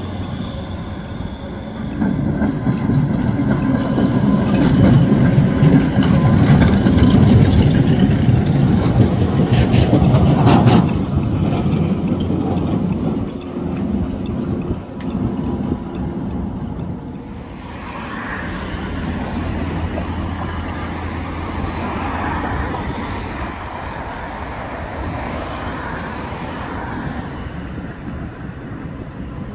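City trams running on street track: a heavy rolling rumble of steel wheels on rails builds to a loud close pass, with a quick run of clacks about ten seconds in as wheels cross rail joints or a switch. Later a quieter tram passes with a steady low hum.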